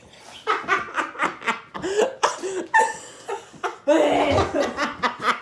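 People laughing in short, choppy bursts, growing louder and rougher about four seconds in.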